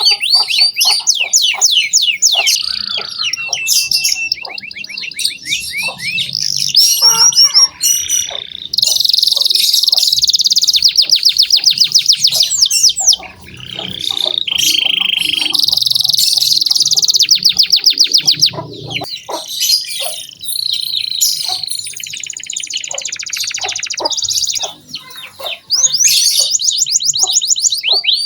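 Domestic canary singing a long, loud, nearly unbroken song of rapid trills and rolls, with a steady buzzing note about halfway through and a couple of brief pauses.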